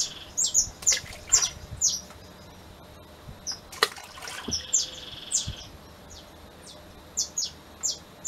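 Small birds chirping over and over in short, quick falling calls. A little under four seconds in there is a single splash as a ball of rice-bran groundbait lands in the river.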